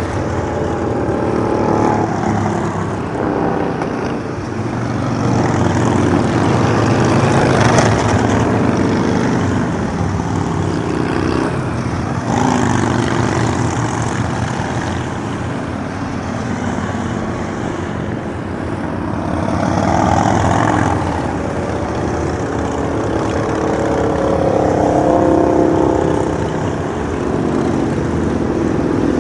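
A procession of cruiser motorcycles passing one after another on a highway, their engines running steadily and the sound swelling and fading as each bike or pair goes by.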